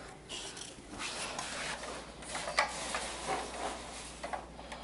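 Faint scattered clicks and rustles of plastic toy trucks being handled and moved on carpet.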